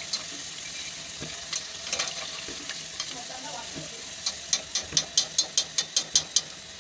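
Potato pakoras sizzling in hot oil, with a few sharp clicks and then, in the second half, a quick run of clicks about four or five a second as the wire spider skimmer loaded with fried pakoras is shaken against the pan to drain.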